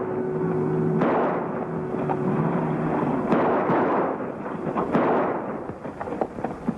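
A Jeep's engine backfiring with repeated loud bangs, tailing off into smaller pops near the end: the engine is misfiring.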